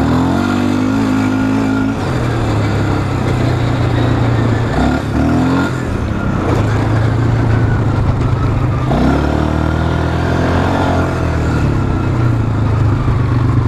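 Polaris Scrambler 500 ATV's single-cylinder four-stroke engine running under throttle, revving up and easing off several times, with a long rising rev about nine seconds in.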